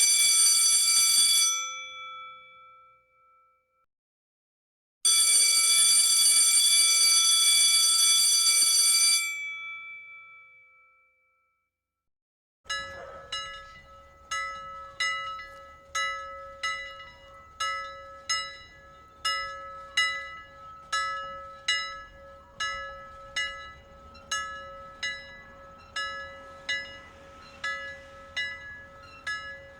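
A school bell rings continuously for about two seconds and dies away. After a short silence it rings again for about four seconds and dies away. Near the middle a single bell starts being struck over and over, about one and a half strokes a second, each stroke ringing on over a steady hum of tone.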